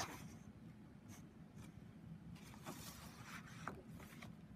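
Faint handling of sheets of patterned card-making paper: a few brief, soft rustles and slides over a low steady room hum.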